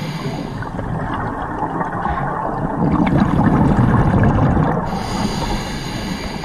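Scuba regulator breathing heard underwater: a steady rush with a gurgling surge of exhaled bubbles, loudest from about three to five seconds in.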